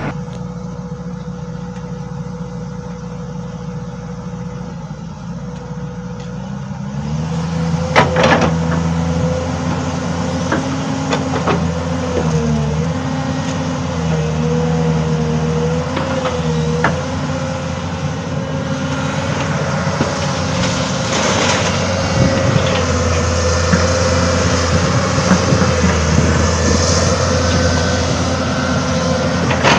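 Excavator's diesel engine running with a steady wavering whine over it. The engine gets louder and heavier about seven seconds in as the machine is put to work. A few sharp knocks and clanks come through, the loudest about eight seconds in.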